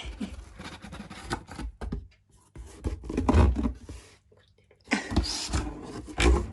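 Irregular rustling and scraping close to the microphone, with a few dull bumps, the loudest about three seconds in and again near the end.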